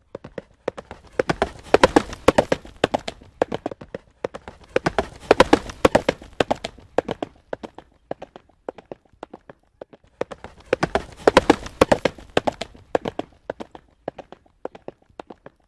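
Horse hooves galloping in a fast, rapid beat that swells loud three times and fades between, as if the horse passes close and draws away again.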